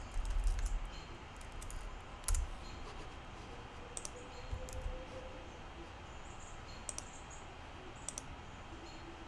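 Computer keyboard keystrokes and mouse clicks, sparse and irregular, with one sharper click about two seconds in. A dull low bump comes in the first second.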